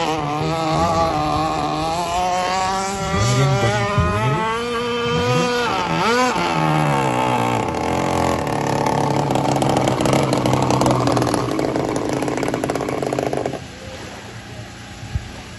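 Gas-powered radio-controlled Apache offshore powerboat model's two-stroke engine running at high revs, its pitch rising and falling with the throttle as the boat speeds across the water. The engine sound steadies, then drops away sharply near the end.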